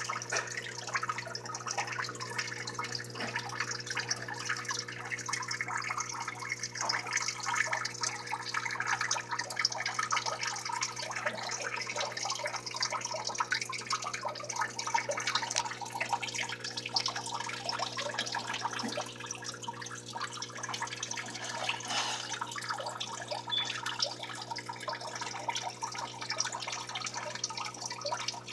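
Water trickling and splashing steadily, like a small water feature running, over a steady low hum.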